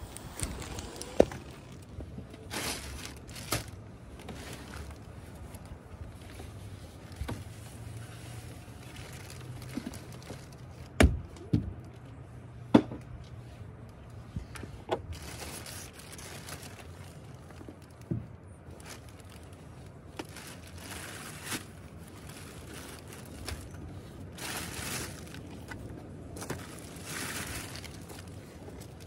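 Rubbish being gathered by hand from a car's back seat: plastic wrappers and a plastic carrier bag crinkling in several stretches, with scattered knocks and a few sharp thumps against the seat.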